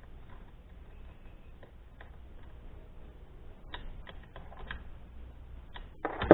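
Light, scattered clicks and taps of small metal parts and tools being handled while the chainsaw's muffler is refitted, with a louder clunk near the end.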